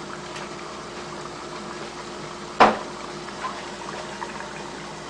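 Chicken pieces deep-frying in a pot of hot oil, a steady bubbling sizzle. A single sharp knock about two and a half seconds in.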